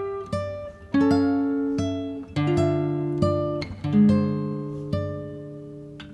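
Background music: acoustic guitar picking single notes and chords, about one a second, each struck sharply and left to ring and fade.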